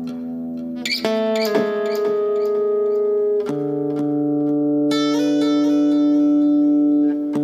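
Steel-string acoustic guitar played through a delay effect pedal: single plucked notes ring on and layer over one another, with new notes entering about a second in, again around three and a half seconds, and a higher group near five seconds.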